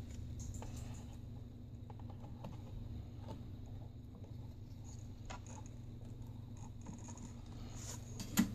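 Faint clicks and taps of a replacement laptop LCD panel being handled and set into the screen lid, with one sharper click near the end, over a steady low electrical hum of background noise.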